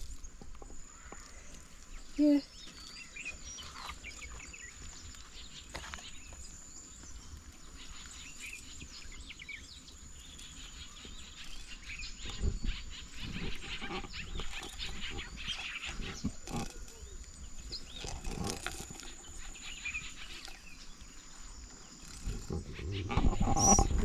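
Quiet outdoor rustling and scattered knocks, heavier about halfway through, over a steady high-pitched whine.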